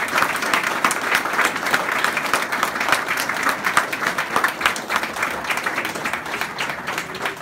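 Audience applauding, many hands clapping steadily, easing off a little near the end.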